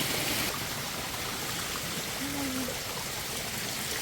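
Running water from a stream or falls cascading over rocks, a steady rushing hiss that drops slightly about half a second in.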